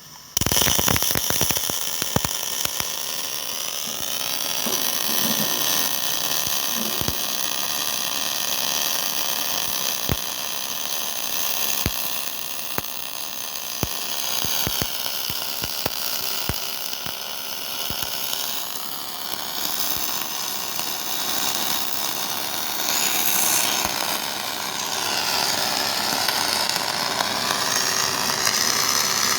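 A robotic welder's arc strikes suddenly less than a second in and then burns steadily: a continuous loud hiss with scattered sharp crackles.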